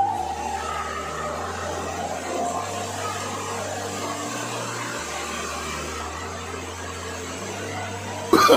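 Steady rushing and splashing of pool water jets in a large echoing indoor pool hall, with faint background music underneath. Just before the end, voices and laughter break in loudly.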